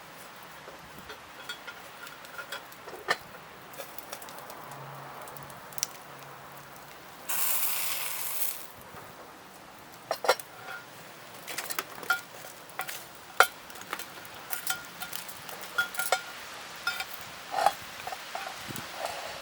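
Camp cooking over a wood fire: scattered clinks and knocks of metal cookware and utensils over a steady sizzle. A short hissing rush comes about seven seconds in.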